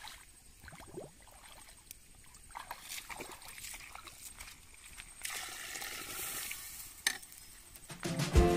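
Faint sloshing and trickling of shallow river water as a steel tumbler is dipped in and filled, with a few scattered knocks. Music comes in near the end.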